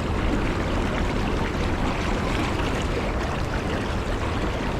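Fast river current rushing steadily: an even wash of water noise with a strong low rumble.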